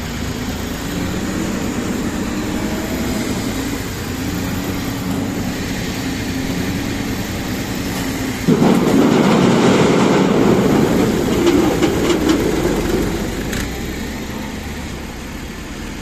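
Corn harvesting machine running steadily. About eight seconds in, its hopper tips and a load of corn pours into the trailer with a sudden loud rattling rush, which eases off over the last few seconds.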